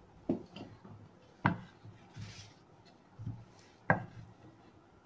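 Pine boards being handled and set down on a workbench: a few sharp wooden knocks, the loudest about a second and a half in and again near the four-second mark, with smaller ones between.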